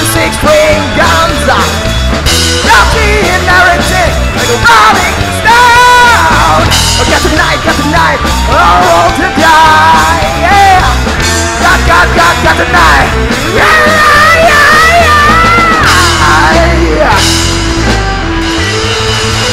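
Rock band playing loud, with a high lead line that bends and wavers in pitch over the band.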